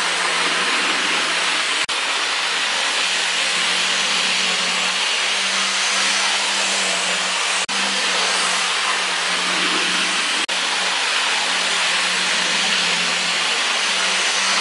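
Lima HO gauge TGV model train running on its test track: a steady motor whine and hum with the rush of the wheels on the rails. The sound briefly drops out three times.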